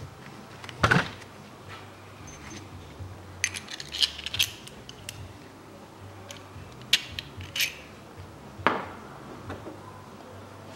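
Short metallic clinks and taps at irregular intervals, a dozen or so, from a timing-belt tensioner roller and tools being handled and fitted in the engine bay.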